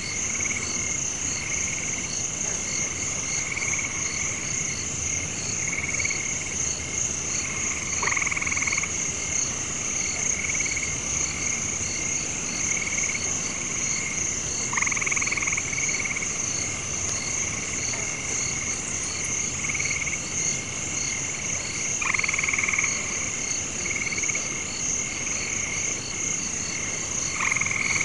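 Night chorus of frogs and insects: a steady high trill with a fast pulsing call under it, and a louder frog call coming back about every seven seconds, four times.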